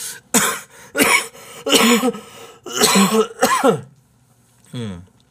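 A man coughing hard in a run of about five loud coughs with voice in them, then a softer cough near the end, as though something he ate went down the wrong way.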